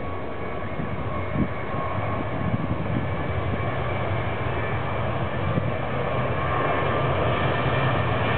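Boeing 737-800's CFM56 jet engines at takeoff power on the runway, a steady roar with a faint whine that grows louder as the airliner rolls nearer. There is a brief thump about a second and a half in.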